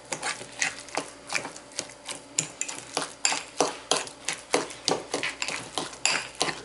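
A metal fork stirring and mashing guacamole in a glass bowl, clicking and scraping against the glass about three times a second.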